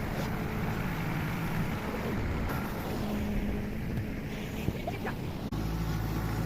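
Tractor engine running steadily under load while moving a heavy log, with some wind noise on the microphone. About five and a half seconds in, the sound switches abruptly to a steadier engine hum.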